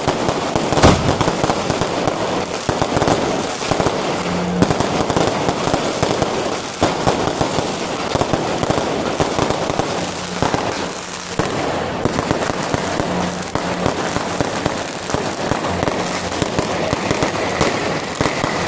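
Fireworks going off without a break: dense crackling with frequent sharp bangs, the loudest about a second in, as aerial shells burst overhead.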